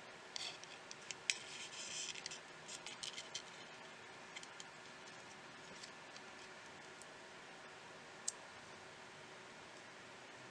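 Small tools and smartphone parts being handled during repair: a quick run of light clicks and scratching for the first few seconds, then one sharp click about eight seconds in, over a steady background hiss.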